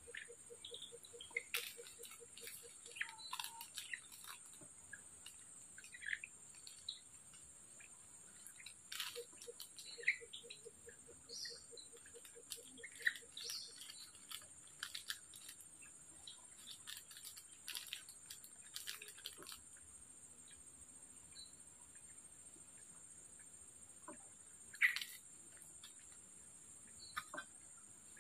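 Tropical forest ambience: a steady high-pitched drone of insects, with scattered bird chirps and short clicks. A rapid low pulsing call comes twice, at the start and again about ten seconds in, and a sharp click near the end is the loudest sound.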